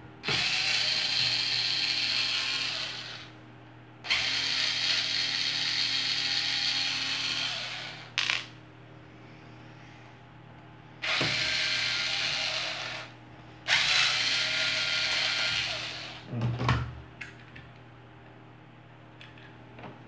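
Corded electric screwdriver running in four steady spells of two to three and a half seconds each, backing out the screws that hold a fan's oscillation gearbox. A few short knocks of handling come in the pauses.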